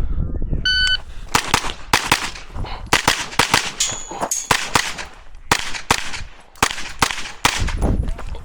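Shot timer beep, then rapid fire from a Sig Sauer MPX pistol-calibre carbine: sharp shots, often in quick pairs, starting about a second in and running on. A brief high ring sounds about four seconds in.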